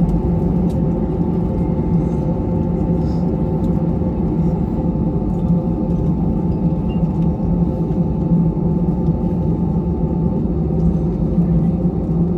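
Steady low rumble inside the cabin of an Airbus A321-200 taxiing after landing, engines at idle, with a thin steady hum over it that stops about ten seconds in.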